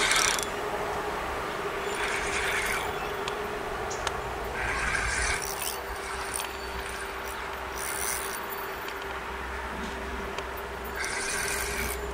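Spinning reel being wound in four short spells, each under a second, over a steady hum.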